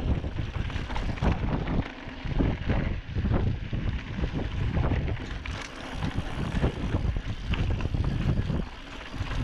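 Wind buffeting the microphone over the rumble and rattle of a 2016 Giant Trance 2 mountain bike rolling down a rocky dirt trail, with frequent clicks and knocks as the tyres and frame go over stones.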